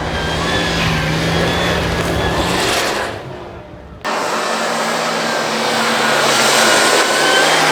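Rally car running hard on a snow stage, its engine noise fading away after about three seconds, then cutting abruptly back to another loud run just after four seconds in.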